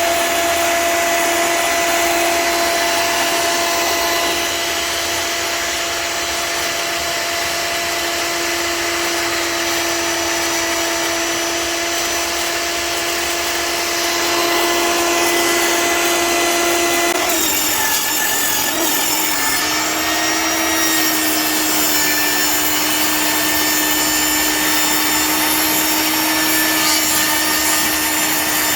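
Table saw ripping a long cedar board lengthwise, running with a steady whine. A little over halfway through, the pitch wavers and dips briefly, then settles slightly lower as the cut goes on.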